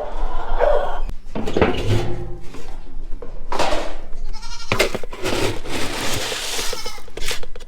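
Nigerian dwarf goats bleating, mixed with several loud bursts of rustling, scraping noise.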